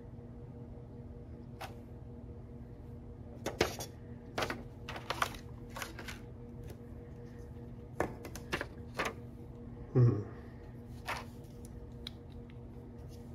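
Scattered sharp plastic clicks and rattles from handling a hard-plastic Gundam action figure, its parts and a clear plastic blister tray, over a steady low hum. The loudest is a knock with a low thud about ten seconds in.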